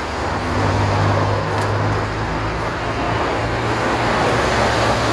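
Steady city street traffic noise, with the low hum of vehicle engines running throughout.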